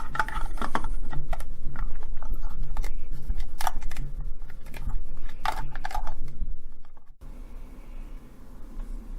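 Irregular plastic clicks and scrapes from handling a cheap battery tester: its spring-loaded slider is drawn back and an AA cell is clipped into place. A steady low hum runs underneath; the clicking stops abruptly about seven seconds in.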